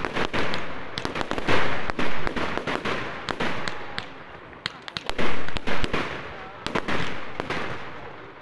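Fireworks display: aerial shells bursting in a run of loud bangs that fade out slowly, over a dense, continuous crackling and popping.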